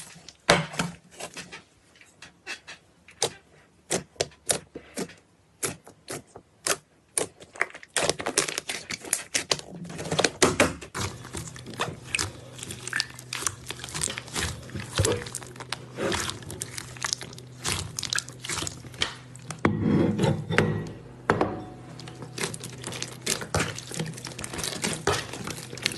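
Close-miked sharp clicks and crackles, sparse at first, then a dense crackling from about eight seconds in, with a low steady hum underneath from about eleven seconds in.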